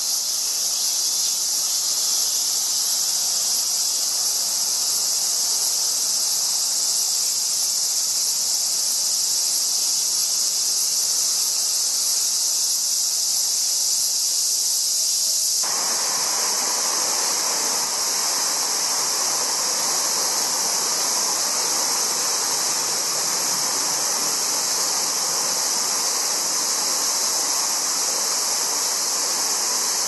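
A steady, high-pitched chorus of insects buzzing. About halfway through, the rush of water pouring over a weir starts suddenly beneath it and keeps going.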